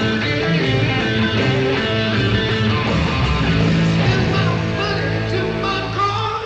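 A live rock band playing a heavy riff, distorted electric guitar and bass in unison over drums, in an old concert recording.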